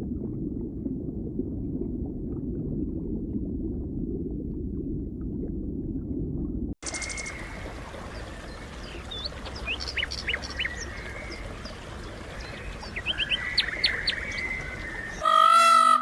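A steady low rumble for about seven seconds that cuts off abruptly. Then comes a quieter outdoor background with scattered short, high bird chirps. Just before the end, a loud pitched call begins.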